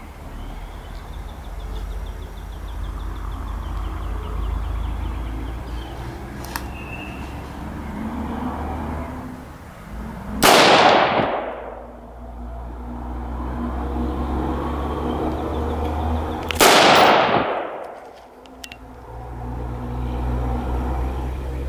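Two shots from a scoped AR-15 rifle, about six seconds apart, each followed by an echo that dies away over about a second. A steady low rumble runs underneath.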